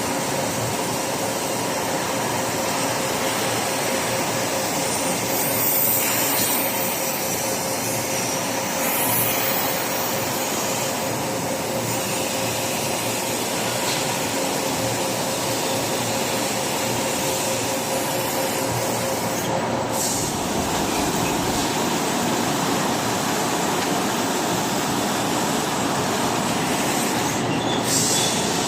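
Whitney 4400 Max CNC turret punch and plasma machine running: a steady machine noise with a steady whine, plus a few brief higher hisses. There are no distinct punch strokes.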